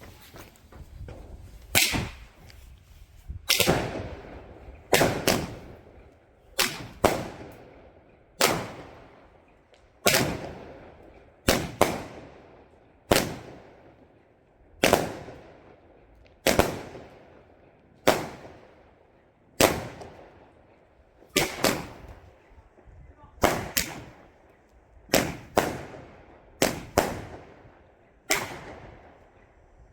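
Albert Tigerking firework battery firing shot after shot: loud bangs about every one and a half to two seconds, several in quick pairs, each trailing off in a fading echo.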